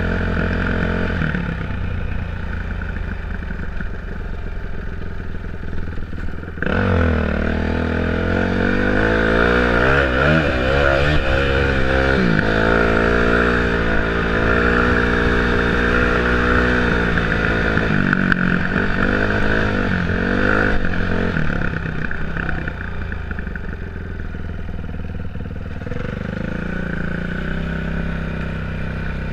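A 2008 Yamaha YZ450F single-cylinder four-stroke motocross engine under way. It runs steadily at first. About a quarter of the way in it opens up suddenly and louder, its pitch climbing and stepping through gear changes, then it holds a steady pace and eases off near the end.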